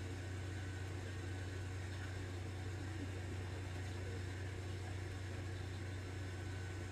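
Steady low hum with faint hiss: room tone, with no distinct event.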